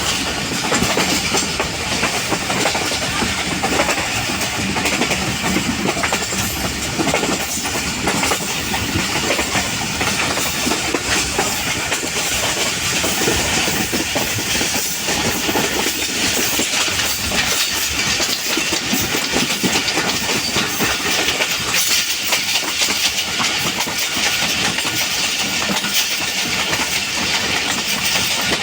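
Passenger train running steadily along the track, its wheels clattering over the rail joints with many quick clicks over a constant rolling rumble.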